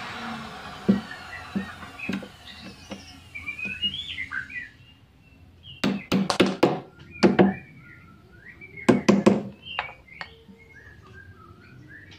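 Hammer tapping a steel door hinge down into its recess in a plywood door edge: lighter knocks in the first few seconds, then a quick run of sharp blows about six seconds in, one more a second later, and three more around nine seconds. A power tool spins down at the start, and birds chirp in the background.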